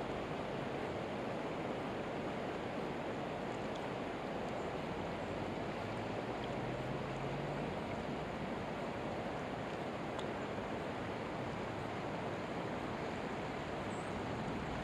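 Steady rush of river current flowing past the bank, an even hiss that does not change.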